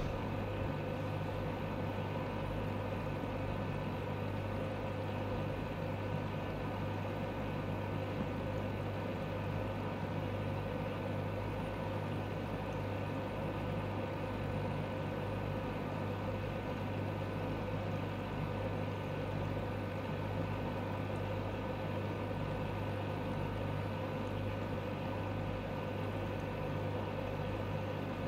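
A steady, unchanging low machine hum with a fainter higher tone over it and a light hiss.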